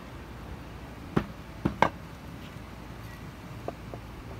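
Bamboo cutting board being set down and shifted on a stone countertop: three sharp knocks about a second in, the last the loudest, then two light ticks near the end. A steady low hum runs underneath.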